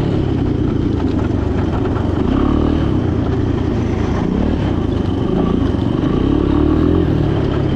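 Small three-wheeler engine running under load, its pitch rising and falling repeatedly as the throttle is worked.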